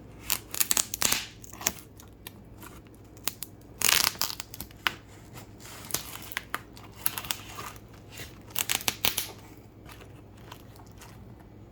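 Packaging being torn open and handled: irregular crinkling, crackling and tearing, with the longest rasp about four seconds in and a last flurry near the end.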